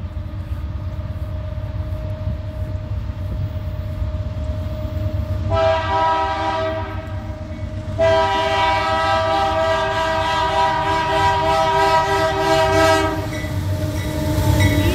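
Air horn of a loaded BNSF coal train's lead locomotive, GE AC4400CW #5697, sounding as it approaches: a blast of about two seconds starting about five seconds in, then a longer blast of about five seconds. Under it, the approaching train's low rumble grows louder.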